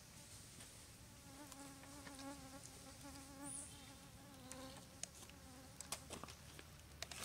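Faint buzzing of a flying insect near the microphone, wavering in pitch, lasting a few seconds, then a few faint clicks near the end.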